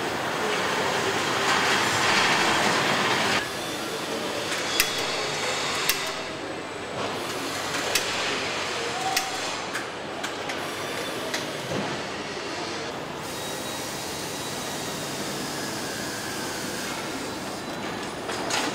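Truck assembly plant floor noise: a steady hiss and hum, louder for about the first three and a half seconds, then lower with scattered sharp metallic clicks and knocks.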